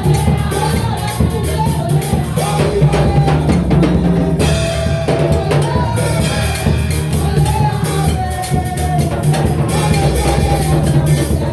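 Worship music played by a band, a drum kit keeping a steady beat under a wavering melody line.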